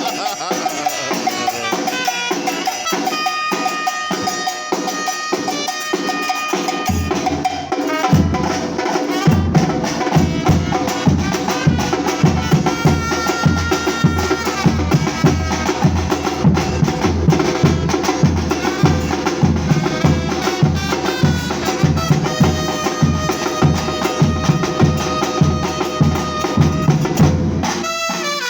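Batucada percussion group playing: lighter drums at first, then deep bass drums come in heavily about seven seconds in with a steady beat, over a few held high tones. The bass drums drop out briefly near the end.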